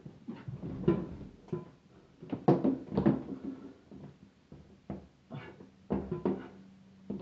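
A series of irregular knocks and clunks, loudest about two and a half and three seconds in.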